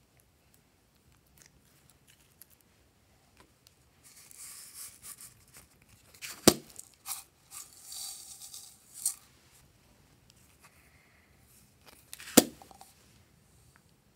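Slime being handled and tipped out of small plastic tubs: soft sticky rustling and scraping, with two sharp clicks about six seconds apart that are the loudest sounds.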